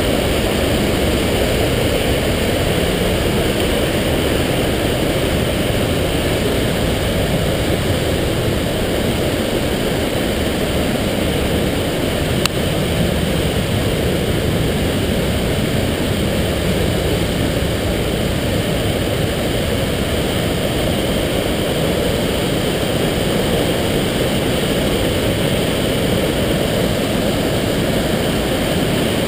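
Mountain torrent rushing through a narrow rock gorge: a steady, deep rush of white water, with a single brief click about halfway through.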